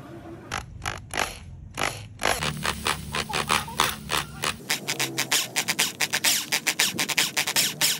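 Twist drill bit boring through a steel shuriken blank: a series of sharp scraping strokes as the bit cuts the steel, coming faster toward the end.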